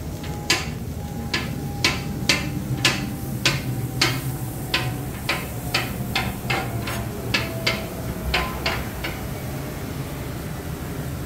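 Metal spatula and scraper clacking and chopping on a steel flat-top griddle, sharp irregular strikes about two a second that stop about nine seconds in, over a steady low hum.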